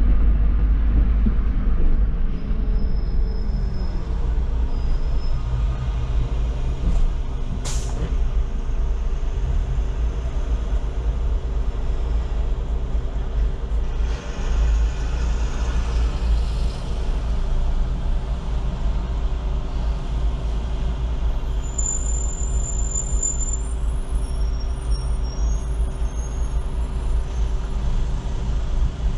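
Solaris Urbino 18 articulated city bus driving, a steady deep engine and road rumble heard on board. There is a sharp click about a quarter of the way in and a short hiss of air about halfway through, typical of the bus's air brakes.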